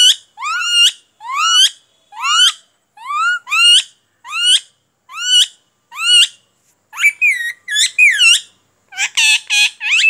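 Pet green parakeet calling: a string of loud, whistled calls that rise and then fall, about one a second, breaking into quicker, more varied chattering calls near the end.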